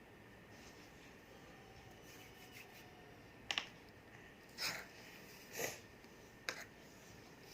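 Quiet room tone with small handling sounds as Play-Doh is shaped by hand: a sharp click about three and a half seconds in, two short breathy rushes about a second apart, and another click near the end.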